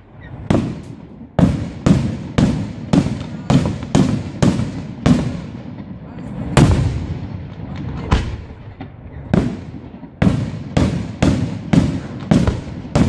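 Aerial firework shells bursting in quick succession, about two bangs a second, each fading off briefly. The loudest bang comes about halfway through, and after a short pause the bangs come in a quicker run near the end.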